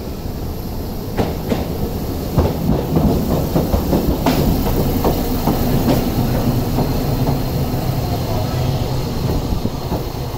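Toei 7700 series tram rolling into the stop, its wheels knocking repeatedly over rail joints and the points of the crossover, then running more smoothly with a steady low hum as it draws up at the platform.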